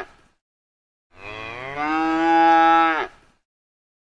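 Cow mooing: one long moo of about two seconds, starting about a second in.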